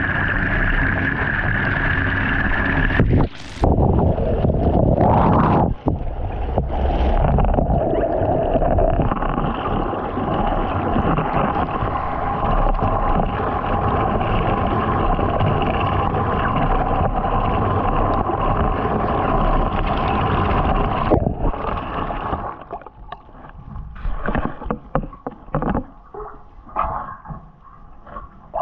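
Bathtub filling with water that pours and churns around a pair of UGG sheepskin boots, heard loud and close from a camera at the water surface. About 21 seconds in the steady rush stops and gives way to irregular sloshing and splashing as the boots tread the water.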